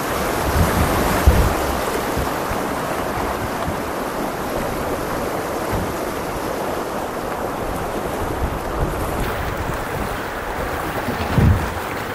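Creek water rushing around a kayak moving through current, a steady hiss of moving water, with a few low thumps about a second in and again near the end.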